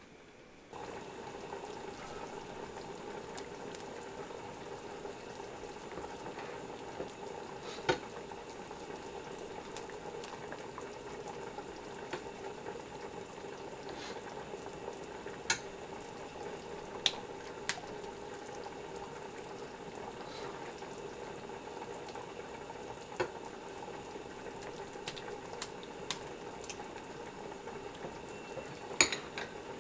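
Food cooking in a pot on the stove: a steady bubbling and sizzling that starts suddenly about a second in, with a few sharp clicks of a utensil against the pot.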